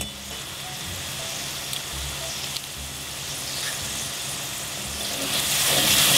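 Diced onions with thyme, scotch bonnet and pimento sizzling in oil in a pan, with a few light clicks of a metal garlic press squeezing garlic over it. About five seconds in the sizzle grows louder as a wooden spoon starts stirring the pan.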